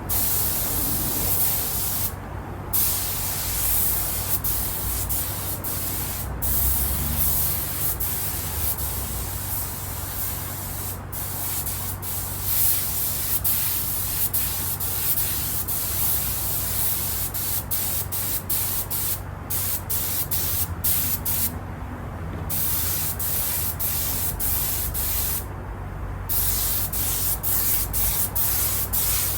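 Spray gun hissing as it sprays leather dye onto car seat leather, in long passes broken by short pauses that come more often near the end, over a steady low hum.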